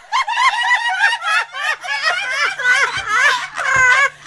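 Women laughing hard and giggling together in high, wavering peals without a break.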